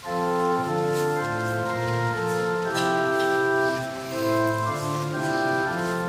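Church pipe organ playing the introduction of a hymn: slow, sustained chords that change about once a second, starting abruptly, before the congregation begins to sing.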